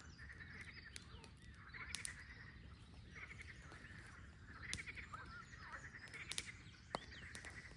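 Frogs calling, faint: short pulsed trills repeating roughly once a second, with a few sharp crackles in between.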